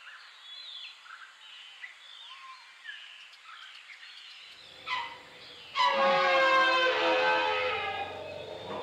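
Birds chirping and singing softly. Then, after a short knock, comes a loud drawn-out Asian elephant call about six seconds in, rich in harmonics, that lasts over two seconds and sags slightly in pitch.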